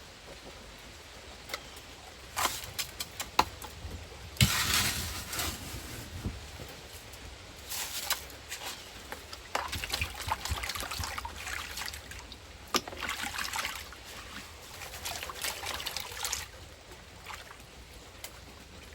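Water sloshing and trickling in irregular surges as a gold pan is shaken and washed, with a few sharp clicks of gravel.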